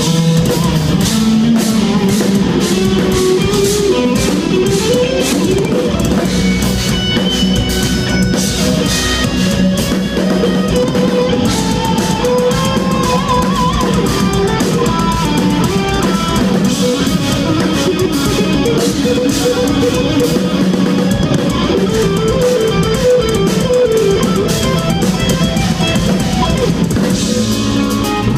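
Instrumental progressive metal played live: intricate eight-string electric guitar lines over a busy drum kit.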